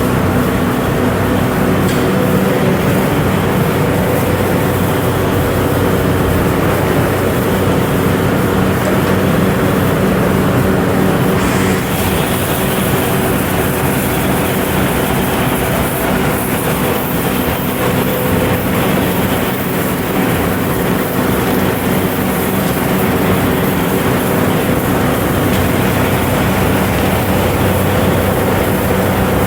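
Factory machinery running steadily: a constant loud hum with several steady tones over a dense mechanical noise.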